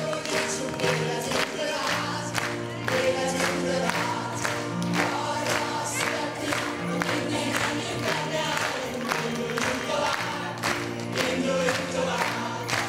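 A song with a steady beat of about two strokes a second, with a group of children's voices singing along to it.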